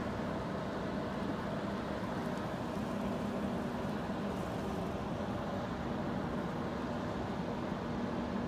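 Steady low engine drone with a constant hum, from the diesel engines of the LPG carrier Bering Gas, over a hiss of wind and water.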